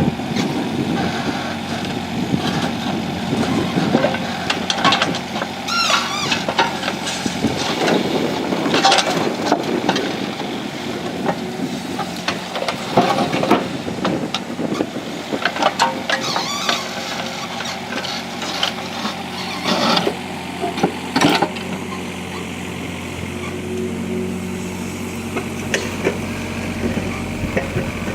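A heavy machine's engine running steadily, with irregular loud scrapes and clanks of broken concrete being moved during driveway demolition.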